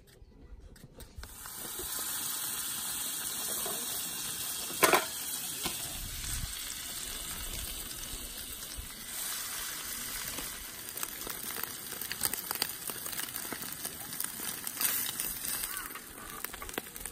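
Egg-soaked baguette slices frying in a pan: a steady sizzle, with one sharp click about five seconds in.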